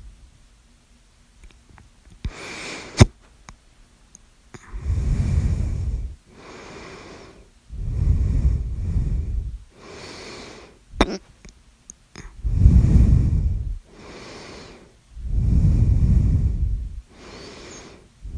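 A person breathing heavily close to the microphone, slow deep breaths every three to four seconds with a low rumble of breath on the mic, alternating with fainter breaths. A sharp click about three seconds in is the loudest sound, and there is another around eleven seconds.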